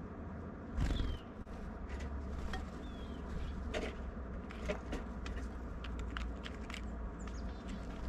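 Birds at a seed feeder: scattered sharp clicks and taps, with a few short, faint high chirps that fall in pitch, over a steady low rumble. A heavier thump comes about a second in.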